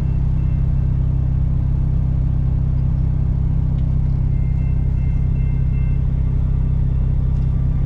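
Steady low rumble, heard from inside a truck cab, of the idling truck engine and a double-stack container freight train rolling past.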